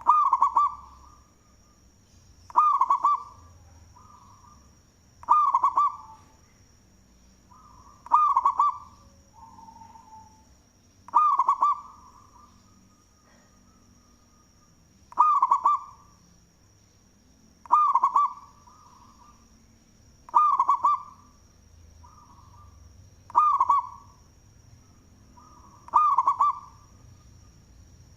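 Local zebra dove (perkutut) with a big voice singing: a loud cooing phrase repeated about every three seconds, ten times, with softer notes between. A faint steady high tone runs underneath.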